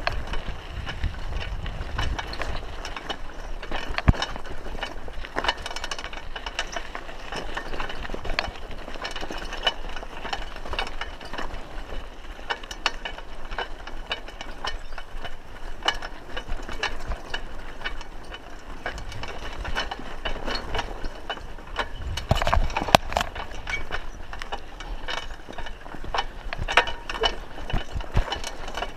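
Raleigh Ascent mountain bike rattling and clattering as it rolls over a rough dirt track, with irregular knocks from bumps. There is a sharp knock about four seconds in and a louder burst of knocks a little past two-thirds of the way through.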